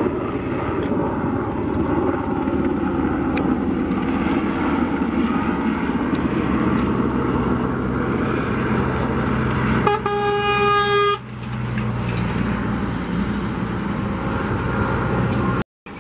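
UH-60 Black Hawk helicopter flying low past, a steady rumble of rotor and turbine. About ten seconds in, a horn sounds once for about a second.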